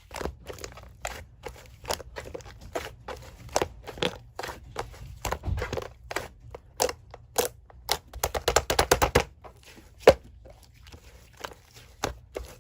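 Blue slime being squished and poked by hand, giving irregular sticky clicks and pops, with a quick run of rapid pops about two-thirds of the way through and one sharp loud pop just after.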